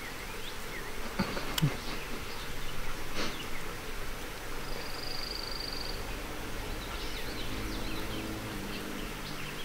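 A flying insect buzzing low and steady near the microphone through the second half, with a short high buzzing trill about five seconds in and faint high chirps scattered throughout. A couple of sharp knocks a bit over a second in are the loudest sounds.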